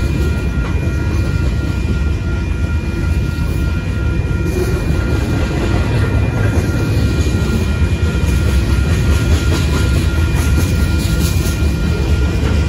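Freight train cars, loaded lumber flatcars then boxcars, rolling through at speed: a steady heavy rumble of steel wheels on rail with clickety-clack clatter. The rattle grows harsher over the last few seconds.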